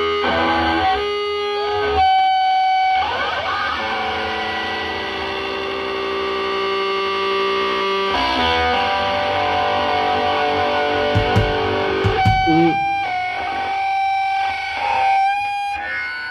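Hardcore punk band playing live: distorted electric guitars and bass holding long ringing chords over drums, changing chord every few seconds. The sound cuts off suddenly at the end.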